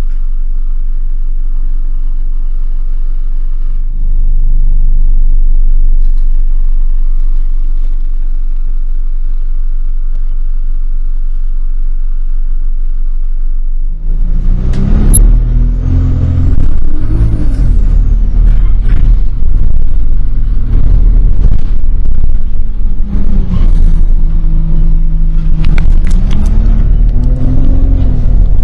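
Bus engine running steadily, then about fourteen seconds in it grows louder as the bus pulls away, its pitch rising and falling through the gears, with rattles over the top.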